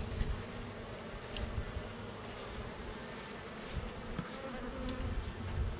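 Honey bees buzzing around an opened hive as a steady hum, with a few faint ticks.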